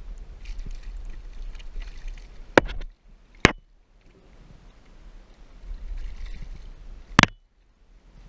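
Water splashing and sloshing beside a kayak as a hooked redfish thrashes at the edge of the marsh grass, over a low rumble. Three sharp knocks cut through it, two close together near the middle and one near the end.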